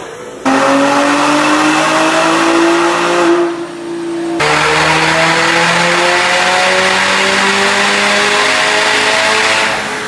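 Ford Mustang's engine at full throttle on a chassis dynamometer, revs climbing steadily. About three and a half seconds in it drops briefly, then climbs again from lower revs and backs off near the end.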